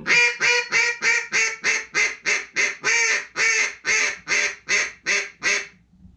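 Mallard hen duck call made of polycarbonate (the Flash) blown in a long, even run of quacks, about three a second. The notes stop shortly before the end.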